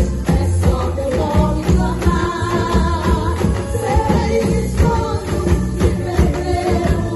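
A percussion band playing a steady beat on bass drums and other drums under a sung worship song, with the singing voice carrying the melody.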